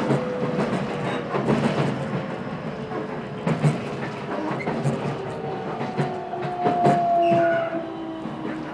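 Nankai electric train heard from inside the carriage as it slows into a station. The wheels click and knock over rail joints, and the motor whine shows as a few thin tones that slowly slide in pitch over a steady running rumble.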